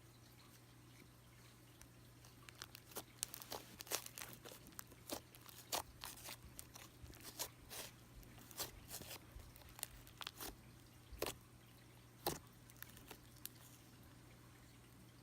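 Cream cheese slime being squeezed and pressed by hand, giving off irregular sticky clicks and pops for about ten seconds. A steady low hum sits under it.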